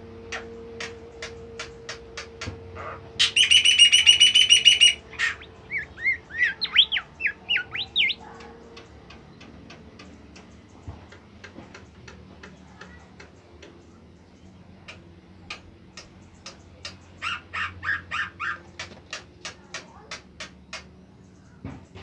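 Caged songbird of the kind keepers call 'bimoli' singing. Sharp chip notes at about three a second, then a loud ringing held call about three seconds in, followed by a run of quick up-and-down whistled notes; later, quieter chips and a short trill.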